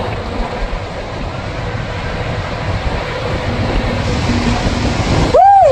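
Rider sliding down an enclosed tube water slide: a steady rumble of rushing water and the body running along the tube. Near the end comes a short, loud squeal that rises and falls in pitch.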